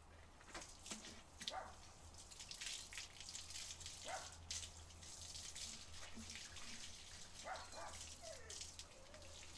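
Water from a garden hose spraying and splattering over a dog's coat and wet concrete, a steady hiss. A few brief faint vocal sounds break through, one a short falling glide near the end.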